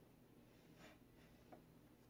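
Near silence: room tone, with a faint soft handling sound a little before halfway and a tiny faint tick shortly after.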